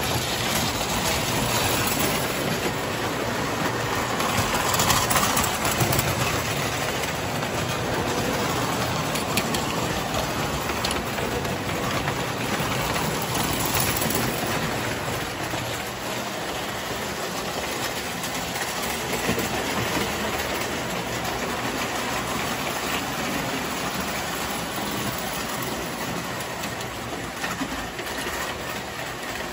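Tinplate three-rail toy trains running on metal track: a steady rattling clatter of wheels over the rails, a little louder about five seconds in.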